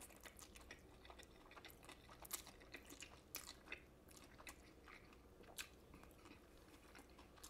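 Faint, close-miked chewing of a mouthful of lo mein noodles: soft wet mouth clicks and smacks, scattered irregularly.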